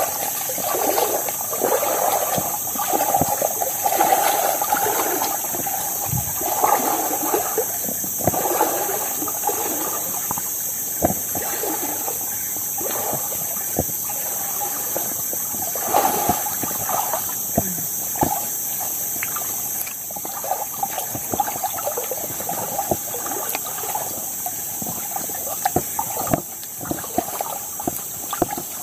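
Water sloshing and splashing as people wade through shallow floodwater, an irregular run of swishes with each step. A steady high insect drone sounds throughout.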